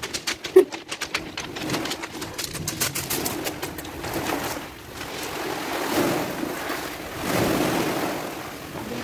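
Waves surging into a narrow sea cave and washing over its pebble floor, swelling twice in the second half. In the first second there are sharp clicks from stones underfoot.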